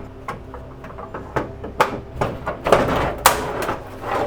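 Knocks and clatters of the elliptical's plastic side cover being worked loose and handled: about seven separate knocks, the loudest about three seconds in.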